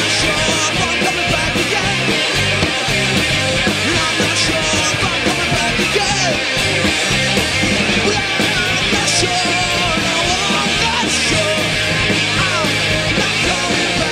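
Live rock band playing steadily and loudly: drum kit and electric guitars.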